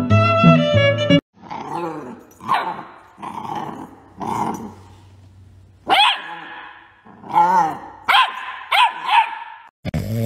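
Violin music for about the first second, then a golden retriever puppy barking and growling in a long string of short yaps and yips, louder in the second half.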